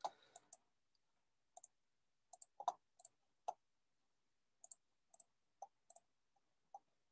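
Near silence broken by faint, scattered clicks, more than a dozen at irregular intervals, the loudest about two and a half seconds in.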